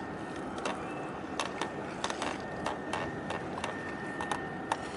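A dozen or more sharp, irregularly spaced clicks and ticks over steady background noise, with a faint thin high tone running underneath.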